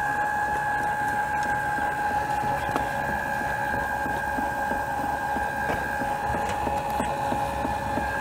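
Electric linear actuator motor running steadily as it raises a chicken coop door, a constant even-pitched whine.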